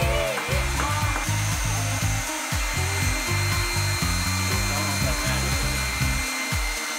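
Handheld hair dryer blowing steadily, with background music playing over it.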